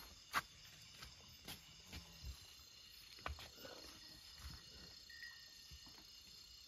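Quiet night ambience: faint steady insect trilling, with scattered soft clicks and rustles.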